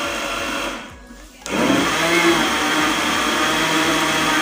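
Electric countertop blender grinding bananas into a thick juice. It runs, stops for under a second about a second in, then starts again, spinning up and running on steadily.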